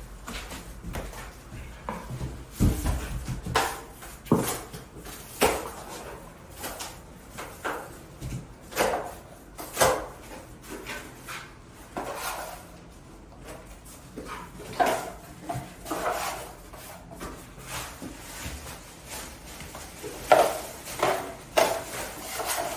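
Drywall knife scraping and clinking against a metal mud pan in irregular strokes, with scattered sharper taps, while joint compound is worked.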